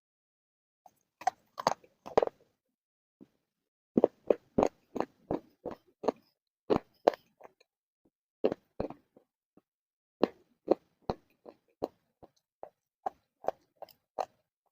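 A person chewing crunchy clay close to the microphone: a string of sharp, dry crunches, some quick and close together, others spaced with short silent pauses.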